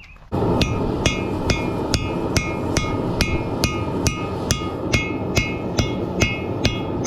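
Hammer striking hot steel on an anvil in a steady forging rhythm, about two ringing blows a second, starting about a third of a second in. A steady rushing noise runs underneath.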